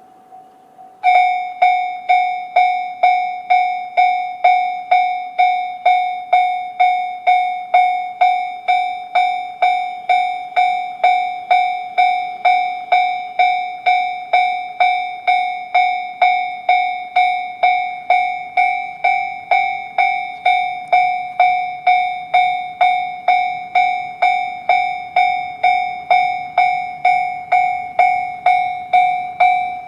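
Japanese railway level-crossing warning bell, the electronic JR standard tone, starting about a second in and striking steadily a little under twice a second.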